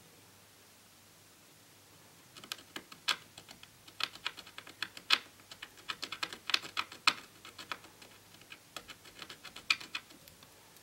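Irregular run of sharp little clicks and scratches from a fine metal tool tip working at the corroded traces of a TV's COF flex cable, clearing the damage left by water. It starts a couple of seconds in and thins out near the end.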